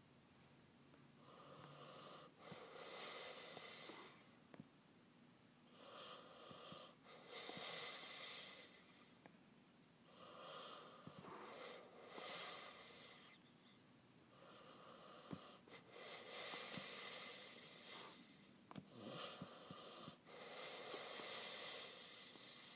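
Faint, slow breathing close to the microphone, about five breaths over the stretch with quiet gaps between.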